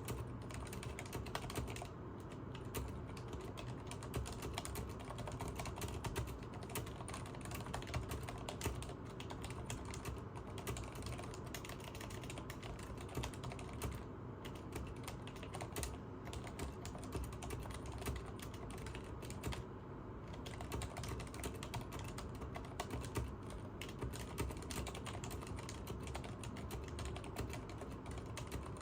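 Continuous fast typing on a Leopold FC980MS mechanical keyboard with Cherry MX Silent Red linear switches: a dense run of soft, muted key strokes with no pauses.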